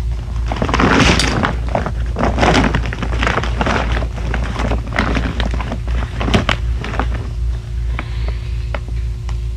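Handling noise of a deflated raft bladder and a strip of repair tape: irregular rustling, crinkling and small knocks as the tape is laid down and smoothed flat, over a steady low hum.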